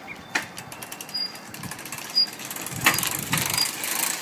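A child's geared bicycle with disc brakes and suspension rolling by: the rear freewheel clicks rapidly, and a short high squeak recurs about once a second from an unlubricated part of the bike.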